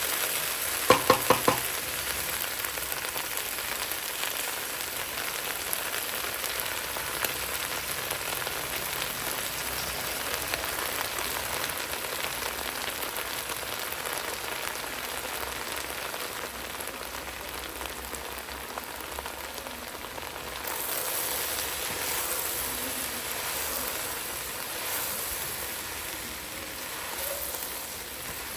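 Okra frying in oil in a pan, sizzling steadily. About a second in come four quick ringing metal clinks.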